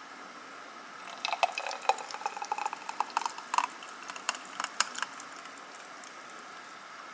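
Light clinks and scrapes of a blender jar against a glass as a thick smoothie is poured out, with the wet slop of the smoothie. The clinks come in a quick scattered run for a few seconds and then stop.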